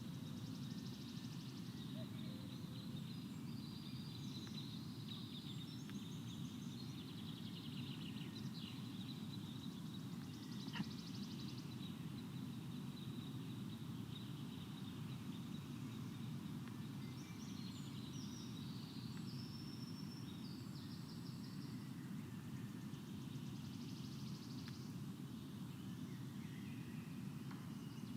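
Songbirds singing faintly in the surrounding forest, trills and chirps coming and going over a steady low background hiss. A single sharp click about eleven seconds in.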